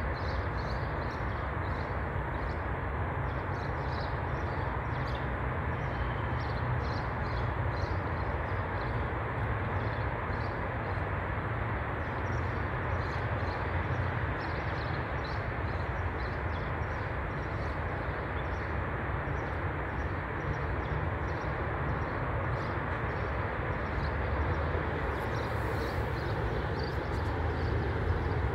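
Steady low outdoor rumble, like distant traffic, with faint irregular clicks of cats chewing food.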